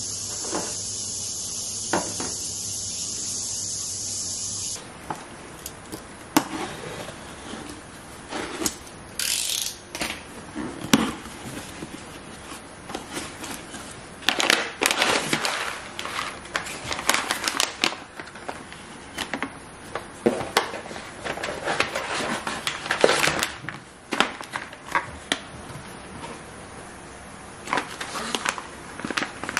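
Cardboard box being opened and paper coffee-bean pouches handled: irregular rustling, crinkling and small taps and knocks, some sharp and loud. A steady hiss with a low hum fills the first few seconds before the handling starts.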